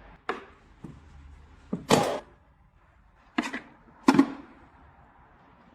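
A few sharp clunks and knocks, irregularly spaced, the loudest about two seconds in: hands handling tools and parts in the workshop.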